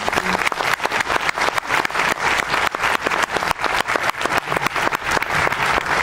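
An audience applauding, many hands clapping together at a steady level.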